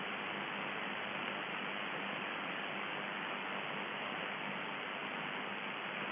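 Shortwave radio static: a steady hiss from a receiver tuned to UVB-76, with a faint low hum underneath.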